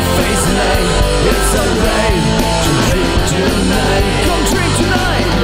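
Loud rock music from a band.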